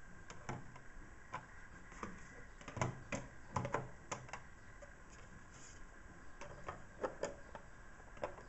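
Irregular wooden clicks and knocks as the plywood panels of a wooden gear-mechanism box are slid and fitted into place by hand, the loudest few about three to four seconds in.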